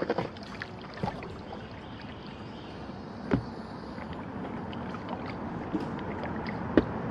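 Kayak being paddled through a strong current: water sloshing steadily and growing slowly louder, with several sharp knocks, the loudest about three seconds in and another near the end.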